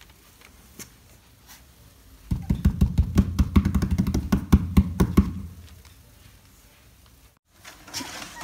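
A rapid run of knocks and scratches, Labrador puppy paws scrabbling against the cardboard wall of the box, starting about two seconds in and dying away after about three seconds.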